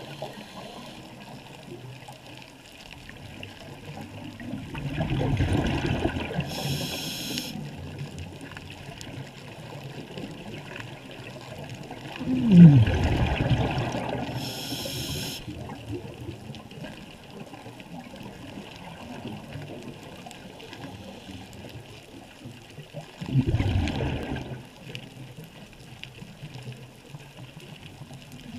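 Scuba diver's regulator underwater: three slow breaths, each exhalation a low burble of bubbles, two of them followed by a short hiss of air drawn through the regulator.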